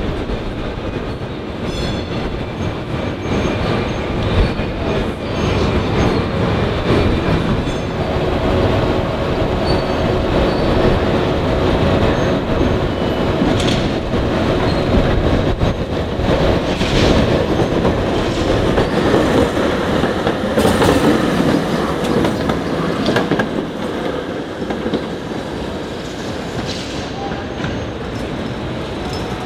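PCC streetcars running on street track: a steady rolling rumble of steel wheels on rails with scattered clicks and a faint steady whine through the middle stretch.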